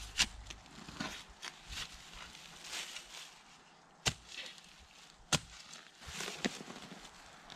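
A long-handled steel shovel chopping and scraping into soil on a forest floor covered in dry leaves: a few sharp strikes of the blade, with crunching scrapes of dirt and leaves between them.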